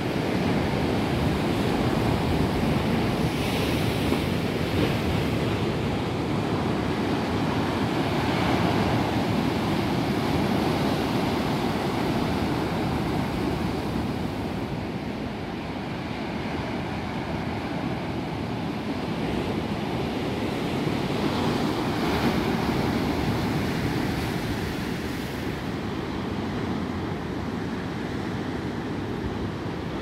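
Black Sea surf breaking and washing onto a boulder-lined shore: a continuous rushing wash that swells every several seconds as a wave breaks.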